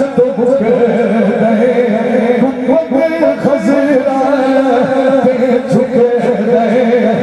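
A male voice singing a naat, a devotional song in praise of the Prophet, in long held, wavering melodic lines.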